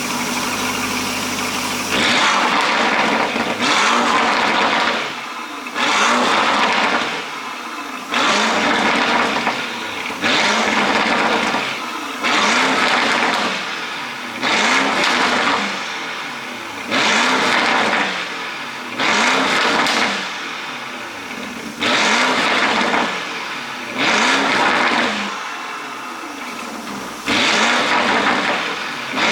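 Lamborghini Urus S twin-turbo V8 idling briefly, then blipped again and again, about once every two seconds. Each rev rises sharply and falls back with exhaust pops and crackles from an ECU pop-and-crackle tune.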